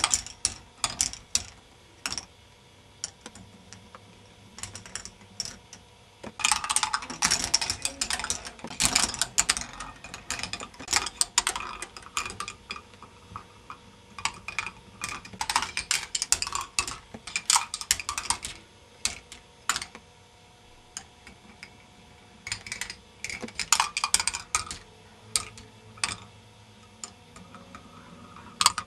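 K'nex ball machine running: plastic balls clattering along the plastic tracks and lifts, a rapid clicking that comes in dense bursts lasting several seconds, with scattered single clicks between.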